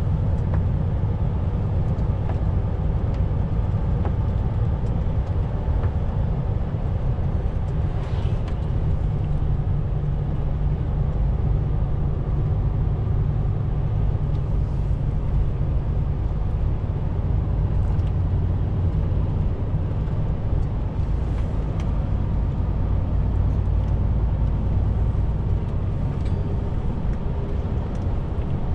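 Heavy truck's diesel engine running at a steady cruise with road noise, a continuous low rumble that holds even throughout.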